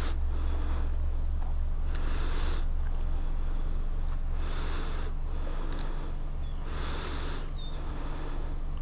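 A person breathing close to a head-mounted camera microphone, a soft breath about every two and a half seconds, over a steady low rumble. Two faint ticks come about two and six seconds in.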